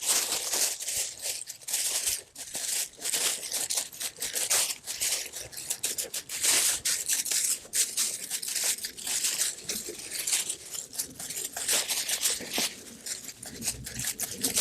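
Frost-killed sweet potato vines being snipped and pulled off a garden bed: dry leaves and stems rustling, crackling and tearing in a continual run of short bursts.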